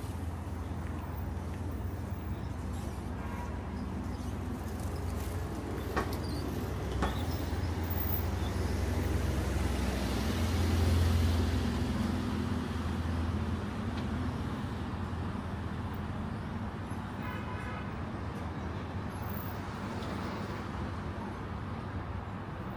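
Street traffic noise with a motor vehicle's low engine hum, which swells as the vehicle passes close about halfway through and then fades. Two sharp clicks come a second apart before it.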